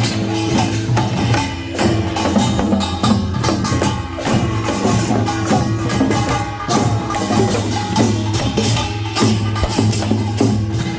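Korean traditional folk music: fast, dense percussion strikes over steady held tones, playing without a break.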